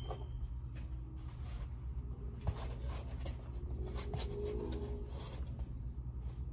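Rustling and scattered light clicks of a microphone and its small plastic accessories being handled, over a steady low hum.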